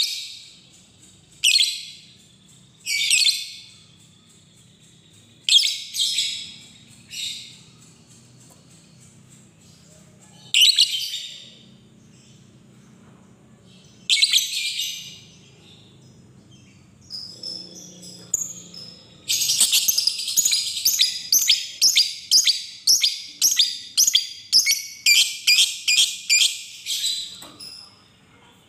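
Lovebird giving short, shrill chattering bursts a second or a few seconds apart. About two-thirds of the way in, it breaks into a long, fast, unbroken chatter, the 'ngekek' call, which stops shortly before the end.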